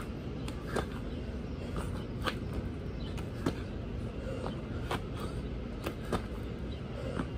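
Person doing burpees on grass: irregular short sharp taps and claps as hands and feet hit the ground and the hands meet overhead at the jump, over a steady low outdoor rumble.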